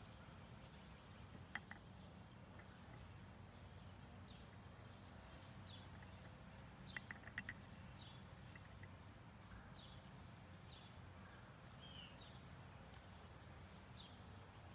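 Near silence: faint, short, high chirps of small birds every second or so over a low steady hum, with a few light clicks about seven seconds in.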